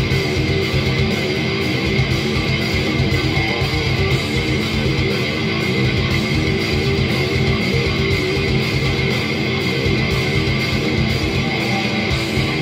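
Schecter electric guitar playing a fast metal riff, loud and dense, as a song performance.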